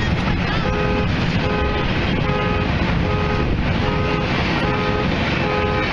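A short, pitched signal tone sounding over and over, about once every 0.8 seconds, over a steady low rumble of traffic or machinery.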